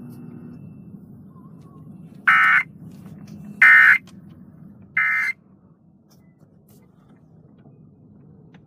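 Three short, harsh electronic data bursts from a radio weather-alert broadcast, about a second and a half apart: the Emergency Alert System end-of-message signal that closes a severe thunderstorm warning.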